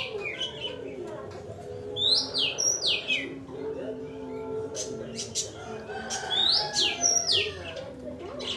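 Oriental magpie-robin (kacer) singing loud phrases of sweeping, falling whistles, about two seconds and six and a half seconds in, over fainter lower chattering calls; a lure song used to set caged magpie-robins singing.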